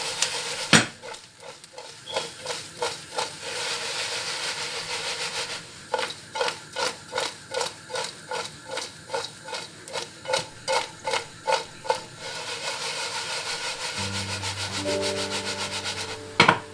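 A spoon stirring and scraping fried brinjal, onion and garlic in a pan of oil to mix in chilli powder and salt: rhythmic strokes about three a second over a steady sizzle, with a sharp knock about a second in. Background music comes in near the end.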